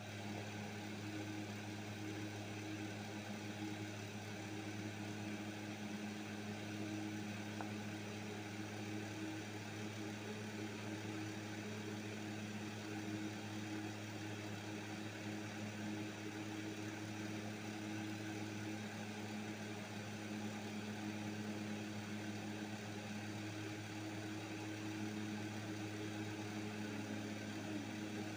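A steady low machine hum with a few fixed tones that do not change.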